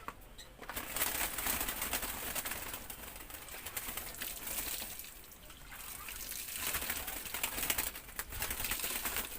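Rustling and crackling in two long stretches of a few seconds each, with a lull of about two seconds between them.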